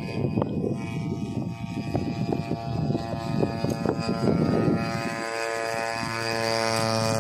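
The small grass-cutter engine of a homemade RC model plane runs with a steady buzzing drone. For about the first five seconds a rough rumble with knocks sits under it. After that the engine's tone is smooth and even.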